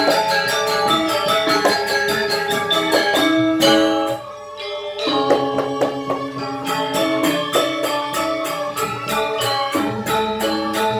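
Balinese gamelan gong kebyar playing dance music: bronze metallophones ringing melodic lines over a fast, even pulse of small cymbals. The music drops briefly to a quieter held tone about four seconds in, then resumes at full level.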